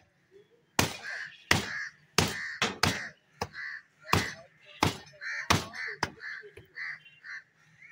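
Heavy cleaver chopping into a skinned cattle head on a wooden block: about nine hard blows at an uneven pace, starting just under a second in. Short harsh calls are repeated between the blows.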